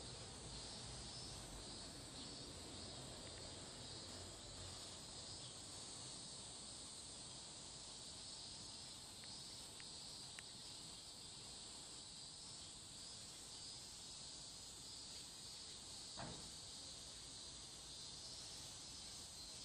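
Faint, steady chirring of insects. One brief soft sound comes about sixteen seconds in.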